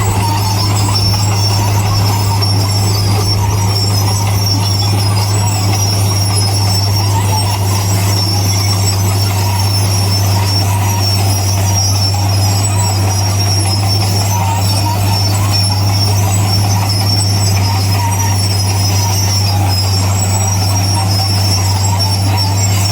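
Bulldozer's diesel engine running at a steady low drone, with a high metallic squealing from its steel tracks and undercarriage.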